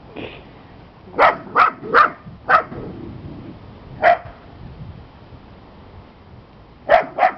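Small dog barking in short, sharp barks. Four come in quick succession about a second in, one more follows a couple of seconds later, and two come near the end.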